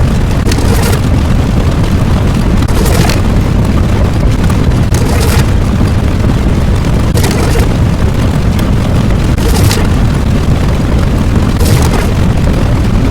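Loud, continuous deep rumbling explosion sound effect, with a brief crackling burst about every two seconds.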